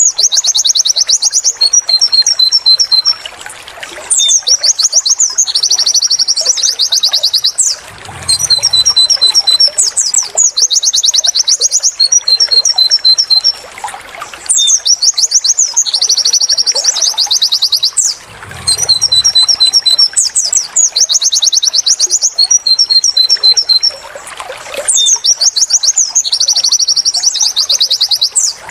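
White-eye (pleci) song of the 'wit wit tulit tulit' type, a tutoring recording for caged birds: loud, high, rapid chirps with quick downward-sweeping notes and dense trills, in phrases separated by short pauses every few seconds.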